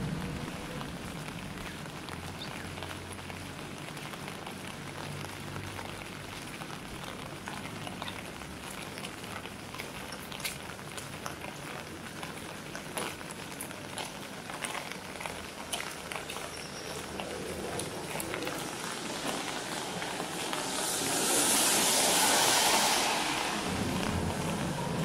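Steady rain falling on wet ground, with scattered sharp drips and ticks. About twenty seconds in, a louder rushing hiss swells for a few seconds and fades.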